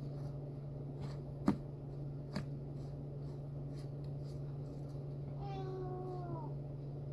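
A domestic cat meows once, a falling call about a second long, a little over five seconds in. Two light clicks come earlier, over a steady low hum.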